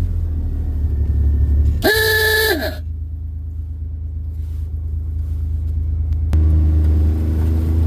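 Steady low drone of a vehicle on the road, with a short car-horn toot about two seconds in. A click comes near the end, and the low drone grows louder after it.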